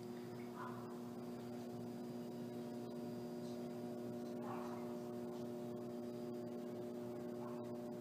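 A steady hum holding several fixed pitches at once. Three faint short sounds rise over it, about half a second in, about four and a half seconds in, and near the end.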